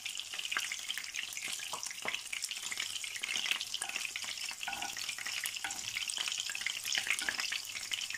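Vegetable oil sizzling in a skillet around cottage-cheese pancakes frying on medium heat: a steady hiss with many small crackling pops.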